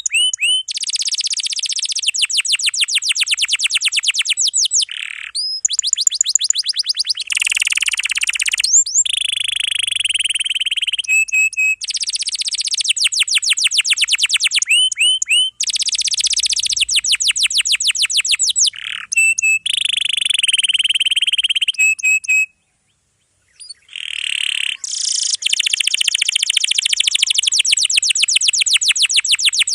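Domestic canary singing densely packed long rolls: rapid trills of repeated high notes run together in phrases several seconds long. There is a brief silent break about three-quarters of the way through.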